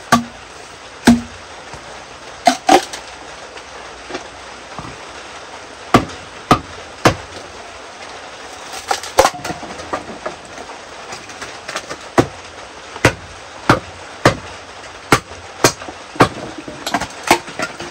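Chopping: a blade striking wood in single blows and pairs, roughly one a second and coming faster in the last few seconds, over a steady hiss of rain.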